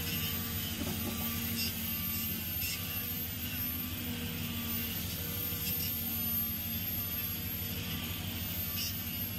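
CAT excavator's diesel engine running steadily under load as the machine digs and swings, with a faint beeping alarm repeating throughout.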